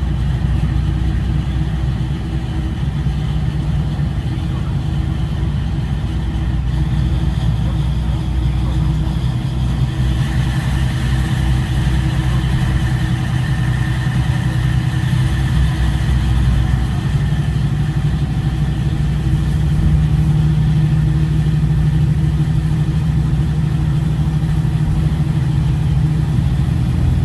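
Diesel engine of a KiHa 40/47 series railcar idling, heard from inside the passenger car: a steady low hum.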